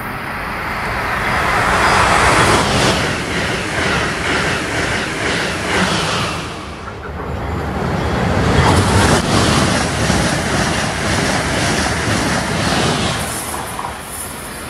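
Amtrak Acela Express electric high-speed trainset passing at speed: a loud, steady rush of wheel and air noise with quick, evenly spaced clicking as the wheels cross rail joints. It fades slightly as the train draws away near the end.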